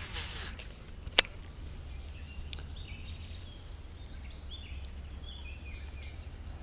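Small birds calling in short chirps through the latter part, over a steady low rumble; a single sharp click about a second in.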